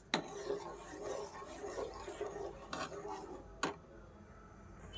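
Steel ladle stirring milk and sugar as they boil down in a kadai, a low scraping rustle broken by a few sharp clinks of the ladle against the pan.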